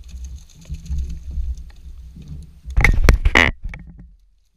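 Low rumble of wind buffeting the microphone over open water, broken about three seconds in by a loud, harsh burst lasting under a second. The sound cuts off suddenly near the end.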